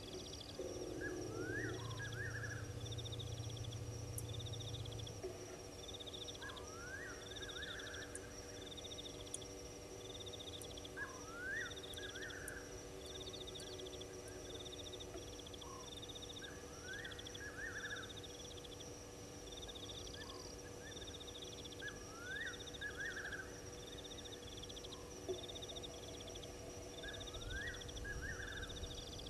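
Night chorus of insects and other animals in the bush: a steady high trill, a soft chirp repeating about once a second, and a rising call ending in a short trill that comes about every five seconds. A low hum sits under it for the first few seconds.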